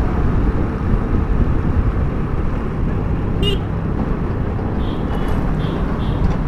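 Motorcycle riding at road speed: a steady low engine drone mixed with wind and road rumble. A brief high tone sounds about three and a half seconds in, and a few fainter short high tones come near the end.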